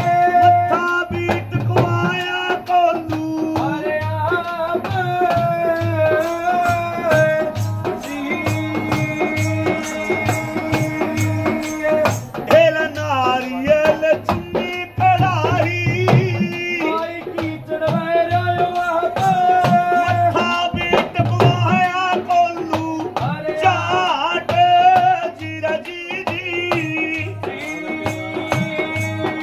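A man singing a devotional folk song while bowing a folk fiddle, with long held, wavering notes, over a steady rattling percussion beat.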